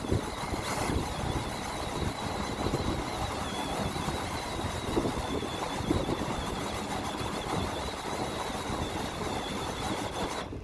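Steady machine-like running noise with scattered knocks and a faint wavering high whine, cutting off abruptly near the end.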